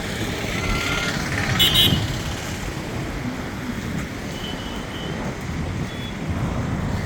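Steady outdoor engine rumble with a short, high beep about a second and a half in and a fainter beep a few seconds later.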